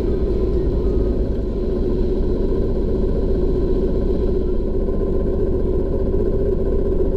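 Narrowboat's diesel engine running steadily at cruising speed: a constant low drone with a steady hum.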